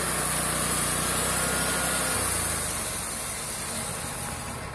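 A Wood-Mizer band sawmill is running, its engine hum under a strong high hiss from the spinning band blade as it slices a steak off a venison loin. About two seconds in, the engine note changes. Over the last second or two the sound fades down toward idle.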